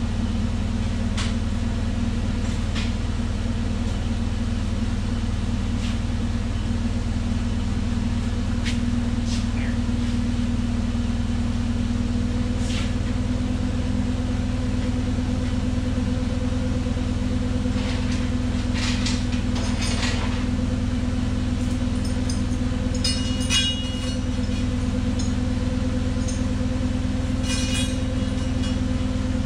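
Forklift engine idling steadily, with scattered clinks and clanks of chain and tools as the lift chain is rigged to the tractor engine.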